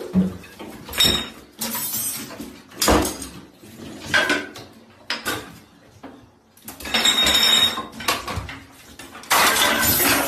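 Small bathroom objects and toiletries clattering as a cat knocks them about on the counter and in the sink: several separate knocks and rattles, with longer clatters late on.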